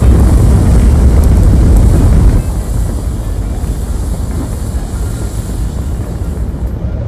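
Low rumbling noise of the descent stage's rocket thrusters firing as the lander hovers. It is loudest for about the first two and a half seconds, then continues steadily at a lower level.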